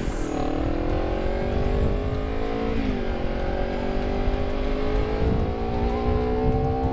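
Honda CBR250RR's parallel-twin engine through a KEA Speed aftermarket exhaust, riding under acceleration: the pitch drops just after the start and again about three seconds in as it shifts up a gear, then climbs steadily.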